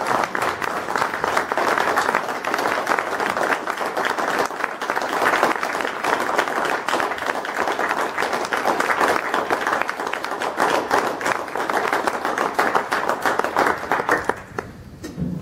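A roomful of people applauding, dense and steady, then dying away about a second before the end.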